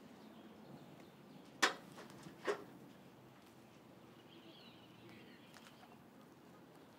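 Two sharp footsteps about a second apart, the first louder, as a person climbs up onto a cinderblock wall, over faint outdoor ambience. A faint high chirping comes about halfway through.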